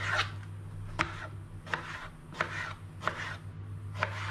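Kitchen knife cutting through eggplant onto a plastic cutting board: about six cuts, roughly one every three-quarters of a second, each a sharp tap of the blade on the board with a short scraping swish.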